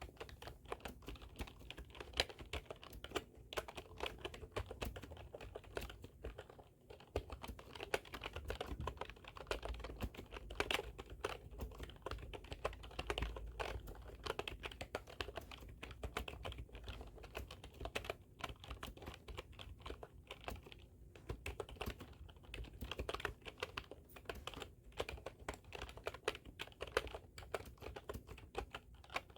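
Typing on a computer keyboard: a dense, irregular stream of key clicks at a quick pace, broken by a few brief pauses.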